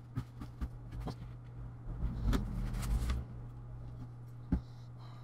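Paper towel rubbing on a laptop motherboard as old thermal paste is wiped off, with scattered light knocks and taps of handling, over a steady low hum.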